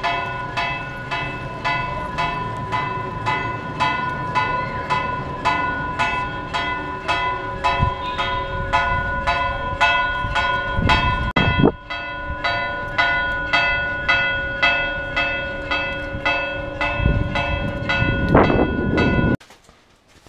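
Church bells ringing a fast, even peal, a strike about every half second or quicker, with several tones hanging over one another. The ringing cuts off suddenly near the end.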